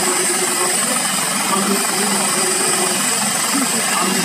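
Dauphin helicopter's turbine engines running on the ground: a steady high whine over a broad, even rush of noise.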